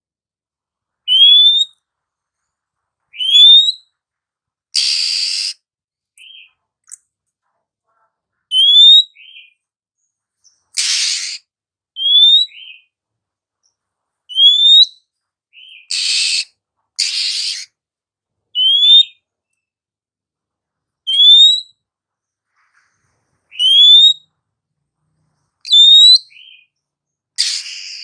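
Female oriental magpie-robin calling: short rising whistles repeated about every two seconds. Between them come a few harsh, rasping calls.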